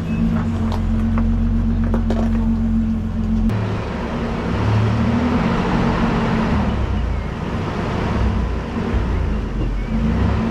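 Off-road truck engine running at low revs, a steady drone with a few faint clicks. About three and a half seconds in the sound cuts abruptly to a rougher, noisier stretch of engine running.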